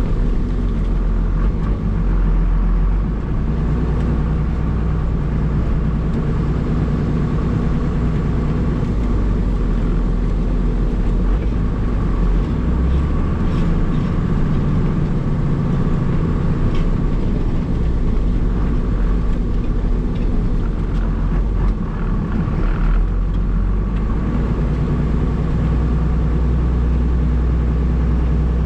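1994 Dodge Cummins 5.9-litre inline-six diesel running steadily, heard from inside the cab, its engine note shifting a little a few times as it works the plow.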